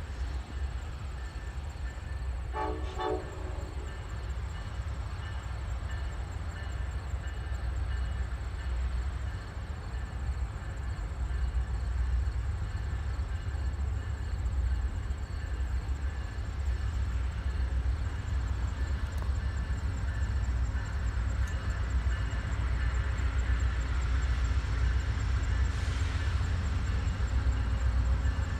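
Amtrak passenger train's diesel locomotive running with a steady low rumble, a short horn toot about three seconds in. The sound grows louder near the end.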